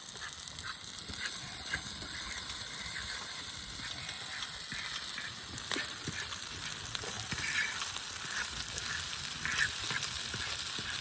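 Jambalaya sizzling in a pan over a campfire, a steady frying hiss with scattered small pops and crackles.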